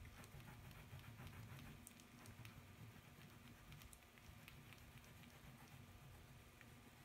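Near silence: faint scratching and light irregular ticks of colour being rubbed onto paper, over a low steady hum.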